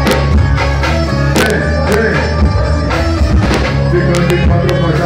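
Live band playing loud amplified music: electric guitar and keyboard over heavy bass, with regular drum hits.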